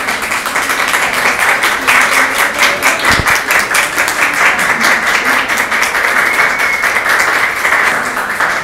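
A roomful of people applauding, with dense, steady clapping.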